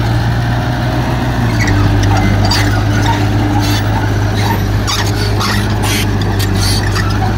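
Heavy earthmoving machinery's diesel engine running steadily, its pitch shifting slightly about a second and a half in, with scattered sharp knocks from the working machine.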